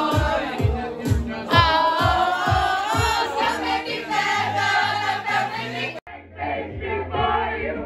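A group of people singing loudly along to a karaoke backing track with a steady beat of about two kicks a second. About six seconds in the sound cuts out abruptly for a moment, then group singing carries on.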